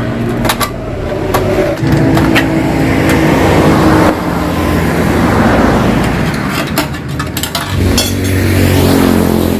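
Yamaha RX-King's two-stroke single-cylinder engine revving up and down through a hollowed-out exhaust, with sharp pops here and there. The revs climb about two seconds in, drop back near the middle and rise again near the end.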